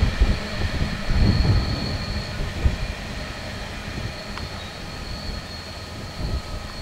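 Coal train hopper wagons rolling past on the rails, with a low rumble and irregular thumps from the wheels, fading as the wagons move away.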